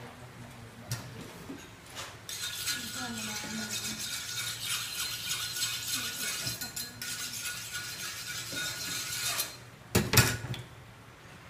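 A kitchen knife being sharpened: a continuous rasping scrape for several seconds, then a few sharp knocks of the knife on the cutting board about ten seconds in.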